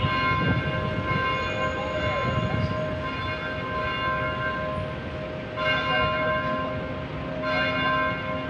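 Church bells ringing: struck tones that hang and overlap, with fresh strokes about five and a half and seven and a half seconds in, over a low background rumble.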